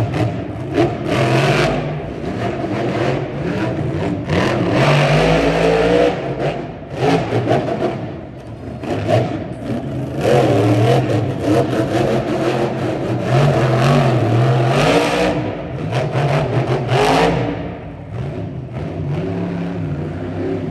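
Monster truck's supercharged V8 engine revving hard in repeated surges that rise and fall, easing off near the end.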